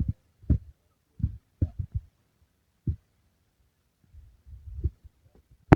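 A scattered series of dull, low thumps, about eight of them at irregular intervals, with a sharper knock near the end.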